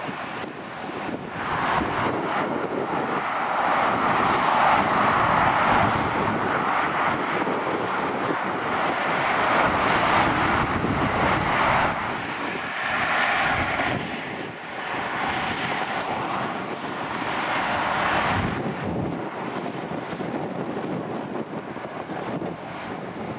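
Dual-carriageway traffic passing below: lorries and cars, a steady tyre and engine noise that swells and eases as each heavy vehicle goes by, with some wind on the microphone.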